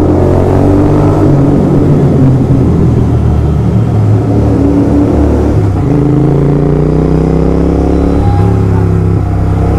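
Royal Enfield Continental GT 650's 648 cc parallel-twin engine running loud through aftermarket Gursewak Big Shot exhausts on the move. The note dips briefly about six seconds in, then climbs steadily in pitch for a couple of seconds as the bike accelerates.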